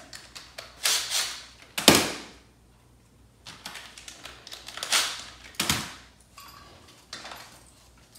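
Cordless drill with a socket on it spinning in short runs, four main ones in two pairs, with light clicks between, backing out bolts to take the generator off a Ford flathead V8-60.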